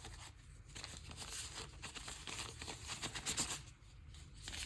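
Faint irregular rustling and light ticking of packaging being handled as accessories are taken out of a camera box.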